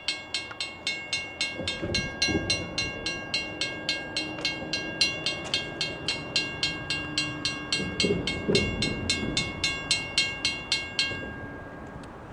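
Railroad grade-crossing bell ringing steadily at about three strikes a second, warning of an approaching train while the crossing gates lower. It stops near the end, once the gates are fully down.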